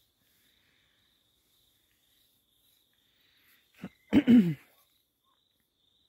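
Insects trilling faintly on one steady high note. About four seconds in, a short loud vocal burst with a falling pitch, like a cough or sneeze, cuts in and stops within half a second.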